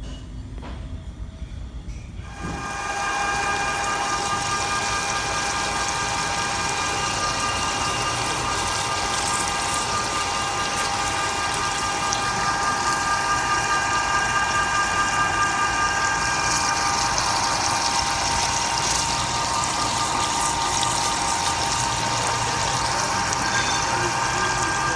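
A 1¼-inch end mill cutting a keyway in a metal gearbox shaft under flood coolant, on what is likely the finishing pass to width. The cut starts about two and a half seconds in and holds steady: a whine of several fixed tones over the hiss of splashing coolant. A couple of light clicks come before it.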